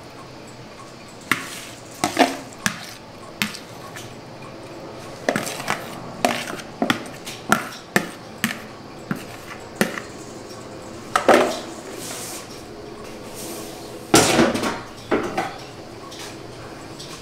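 Metal serving spoon clinking and scraping against a plastic bowl and ceramic plates as pasta is spooned out, with an irregular run of taps and knocks. The loudest knocks come around eleven and fourteen seconds in.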